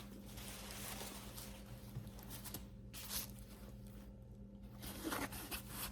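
Faint rustling and soft brushing of a glove-tanned leather handbag being handled, a hand moving inside its deep interior, over a steady low hum.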